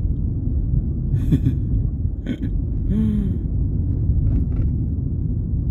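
Steady low rumble of road and engine noise inside a moving car's cabin, with a few brief murmurs from the driver.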